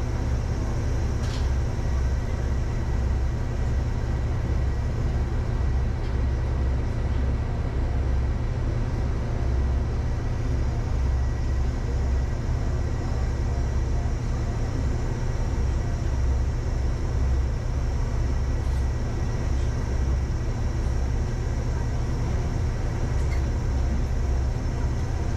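Diesel railcar running, heard from inside the car: a steady low engine throb that pulses unevenly, under a constant hiss of running noise.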